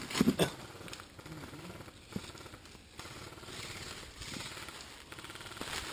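Airsoft gun firing a short rapid burst, a quick mechanical rattle of shots just after the start, followed by a few single knocks.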